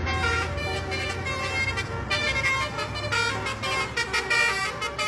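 Indonesian bus telolet horn, a Basuri V1 multi-note air horn, playing a quick melody of changing notes over the low hum of the bus engine.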